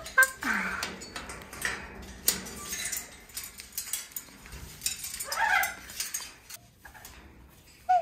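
Pet parrots in a wire cage giving short squawking calls, one about five and a half seconds in and another at the very end, among scattered sharp clicks and taps.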